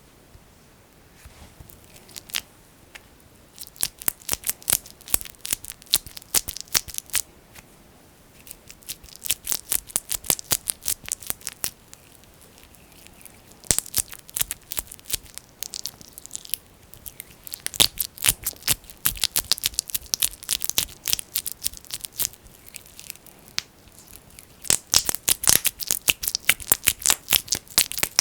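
Fingers pressing and pulling thick, sticky petroleum jelly (Vaseline) close to the microphone. It makes dense, wet clicking and crackling in bursts of a few seconds, with short pauses between.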